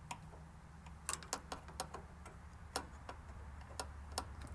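Faint, irregular metal clicks and ticks of a Phillips screwdriver working a small screw on the steel plate that holds the oven's door switches, over a low steady hum.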